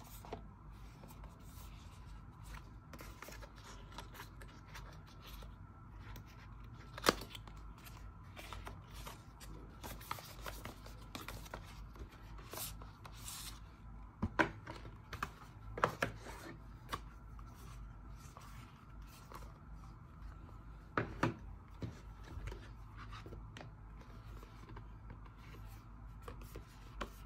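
Hands handling packaging and small gadgets: scattered clicks, taps and rustling. A sharp click comes about seven seconds in, with further clusters of clicks around the middle and about two-thirds through.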